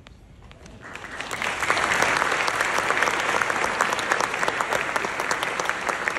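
Audience applauding: clapping starts about a second in, swells quickly and keeps going as a steady dense clatter of many hands.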